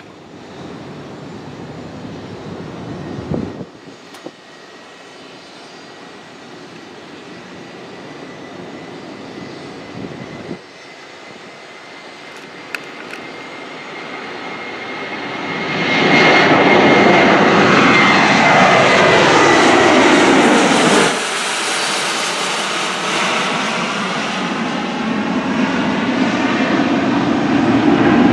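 Passenger jet's engines passing close by. The noise builds steadily, is loudest for about five seconds with a high whine and a sweeping, phasing whoosh, then drops off sharply and carries on as a lower rumble.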